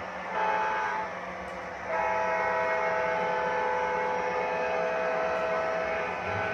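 Sound-system horn of an MTH model ES44AC diesel locomotive: a short blast, then a long blast of about four seconds, several tones at once, over a steady low hum.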